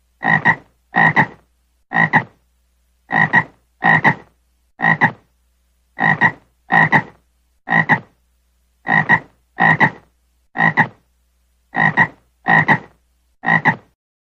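Frog croaking: short rasping croaks, each with a quick double pulse, coming in a repeating pattern of about four croaks every three seconds and stopping just before the end.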